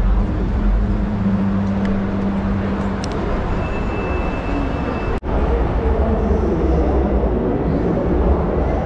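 Busy exhibition-hall ambience: a steady, dense din of crowd and hall noise with a low hum, broken by a sudden momentary dropout about five seconds in.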